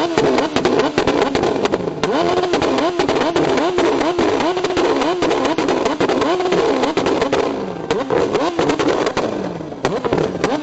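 A car engine with a loud aftermarket exhaust revved in quick repeated throttle blips, about two a second, with sharp crackling pops throughout. The revs fall off twice near the end.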